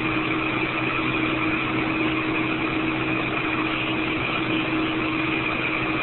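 Steady hiss from an open two-way railway radio channel, with a low steady hum under it.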